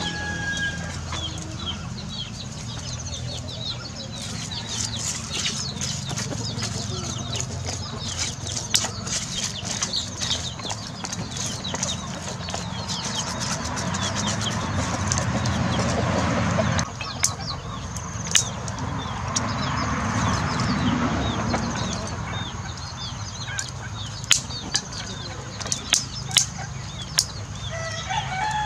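Chickens clucking, with a rooster crowing near the end. Scattered sharp clicks and knocks, and a rushing noise that swells twice, stopping suddenly the first time.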